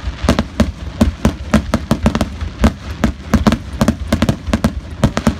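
Aerial firework shells bursting in a rapid, unbroken barrage of bangs, several a second, with a deep rumble underneath.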